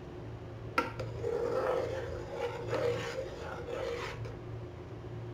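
A metal spoon stirring and scraping around an aluminium saucepan of milk and vermicelli, in repeated strokes about two a second, after a sharp tap about a second in.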